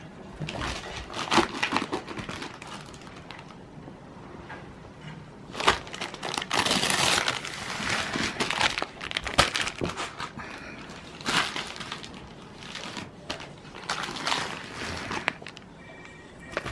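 Paper crumpling and tearing in irregular bursts as a Shiba Inu rips apart a rolled-up paper flyer, busiest around the middle.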